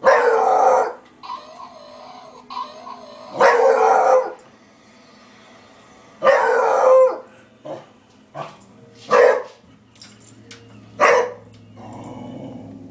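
A beagle barking: five loud, short barks spaced a few seconds apart, with softer yips between them. A steady low hum sets in near the end.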